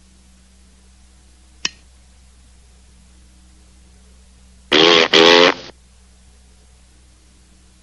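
A short click, then about five seconds in a trumpet mouthpiece blown on its own: a loud, buzzy, wavering honk in two quick blasts.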